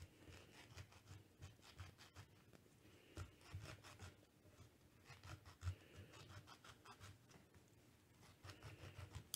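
Faint rubbing of a grapefruit knife cutting around the edge of a halved grapefruit, with soft scattered ticks, barely above silence.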